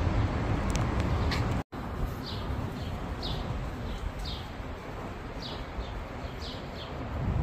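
Steady city rumble with small birds chirping repeatedly, short high chirps a few times a second after the sound cuts out for an instant about a second and a half in.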